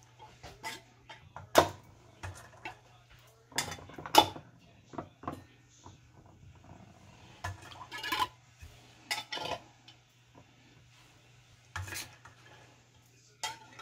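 Metal canning lids being lifted with a magnetic lid wand from a stainless pot of hot water and set on glass mason jars: a series of sharp metallic clicks and clinks, about a dozen at uneven intervals, the loudest near two and four seconds in.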